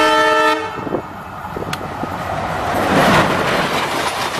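Diesel locomotive horn, a chord of several tones, cutting off about half a second in. It gives way to the rumble and rushing clatter of an ALCo WDM3D diesel locomotive and its coaches passing close, loudest about three seconds in.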